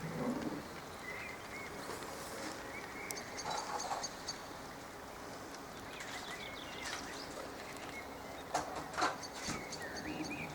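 Outdoor ambience: birds chirping now and then over a steady background hiss, with a few sharp knocks in the last couple of seconds.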